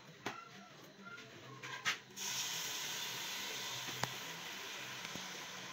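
Blended tomato, pepper and onion puree poured into a hot pot of fried egusi, setting off a sudden steady sizzle about two seconds in, after a couple of light knocks.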